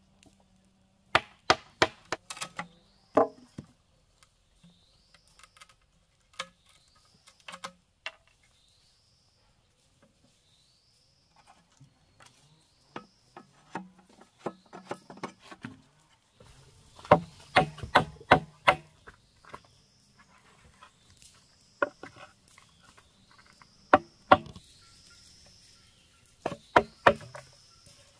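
Blade chopping at bamboo in uneven clusters of sharp strikes, with a pause about a third of the way in and the heaviest run of blows a little past the middle. A faint, short high chirp repeats about every second and a half behind it.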